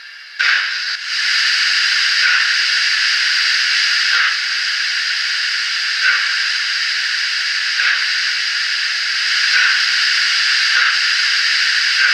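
Graham Farish N gauge Castle class model locomotive's DCC sound decoder playing the steam hiss of open cylinder cocks, in light engine mode, through the model's small onboard speaker. A steady hiss starts about half a second in and swells slightly about every two seconds.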